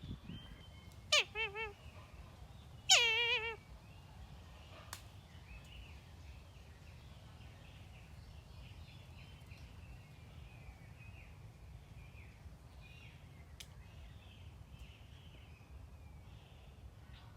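Kite calling twice, about one and three seconds in. Each call is a high, quavering cry that drops steeply in pitch and ends in a wavering trill; the second is the louder.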